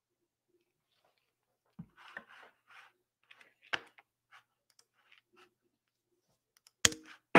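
Faint scattered clicks and taps of a computer mouse and keyboard, with a sharper click near the end.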